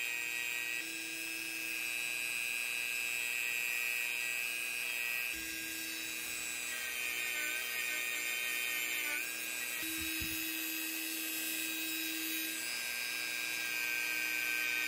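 Dremel rotary tool with a small wire brush running at speed, a steady high whine, as it brushes out the inside of a pocket knife's frame and the backs of its springs. The whine shifts slightly in pitch a few times as the brush is worked in.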